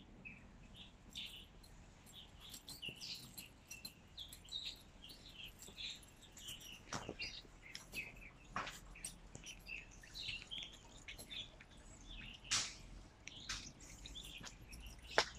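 Small birds chirping busily, many short high chirps overlapping one another, with a few sharp clicks or knocks now and then, the loudest near the end, over a faint low hum.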